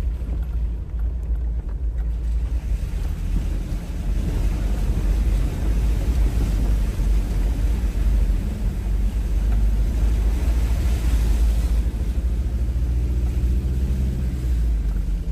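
1993 Mitsubishi Delica van driving on a trail: a steady low rumble of engine and tyres, with wind noise on the microphone.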